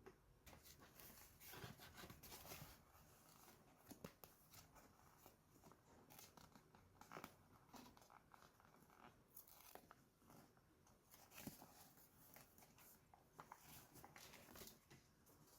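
Faint toy-unboxing handling sounds: irregular small clicks, taps and rustles of plastic toy pieces and packaging being handled.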